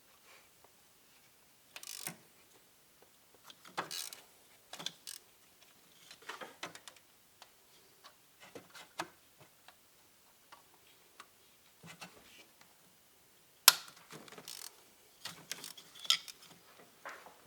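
Hand ratchet with a long Torx bit clicking in short, irregular runs as the injector hold-down bolts of a Ford 6.0 Powerstroke diesel are backed out by hand, with one sharper click about three-quarters of the way through.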